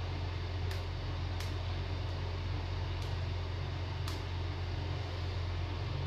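Steady low hum under an even background noise, with four faint clicks in the first four seconds.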